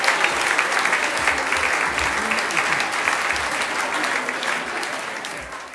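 Audience applauding, with a few voices in the crowd, fading out near the end.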